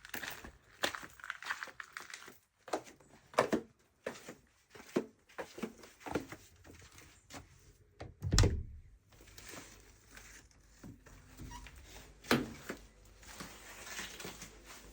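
Scattered knocks, clicks and handling noises in a small room, with one heavier thump about eight seconds in.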